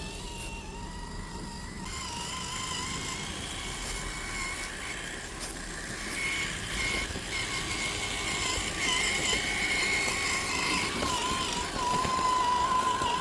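Axial SCX10 III Jeep Gladiator RC crawler's electric motor and gear drivetrain whining steadily, its pitch wavering with the throttle, louder in the second half.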